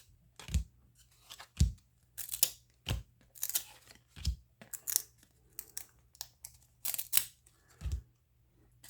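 Baseball trading cards being handled and flipped through one by one: short, irregular swishes of card stock sliding against card, with a few soft thumps as cards are set down.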